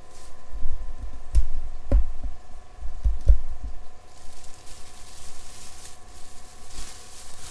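A black plastic carrier bag holding raw mutton being opened and handled, with several dull knocks in the first half and a soft crinkling rustle later on.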